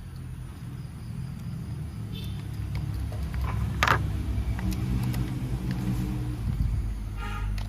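Battery-powered toy train running with a low rumble, with scattered clicks and one sharp knock about four seconds in.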